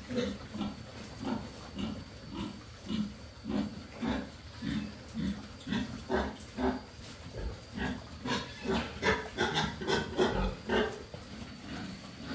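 A pen of fattening pigs grunting as they feed on fresh greens: short low grunts about two a second, several animals together, getting louder from about eight seconds in.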